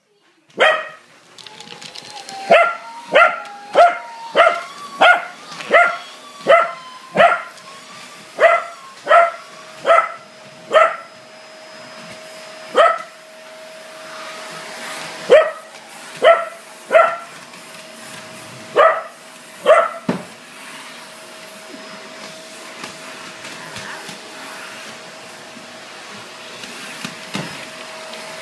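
A corgi barks sharply and repeatedly at a running vacuum cleaner: about nineteen barks, mostly at a steady pace of about one and a half a second, that stop about twenty seconds in. The vacuum cleaner's motor hums steadily under the barking and keeps running after it stops.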